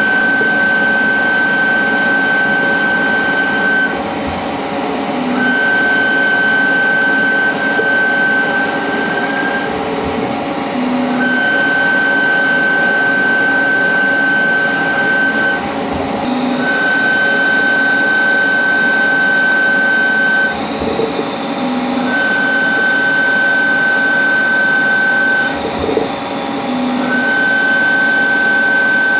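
CNC lathe running a machining cycle: a steady machine hum with a high whine that comes on for about four seconds at a time, six times, with brief pauses between.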